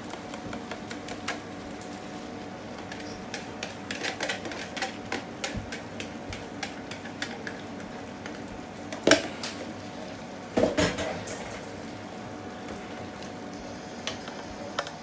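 Wire whisk clicking quickly against a clear bowl as eggs are beaten. About nine and eleven seconds in come two louder clatters of utensil on cookware as the eggs go into the pot, followed by a wooden spoon stirring in the pan.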